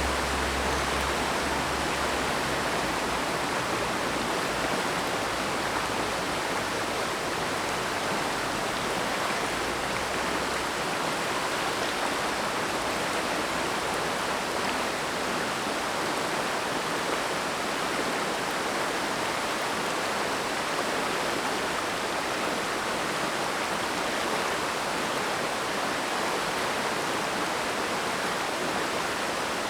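Mountain stream rushing steadily over rocks, an even, unbroken wash of water, with a low rumble underneath for roughly the first ten seconds.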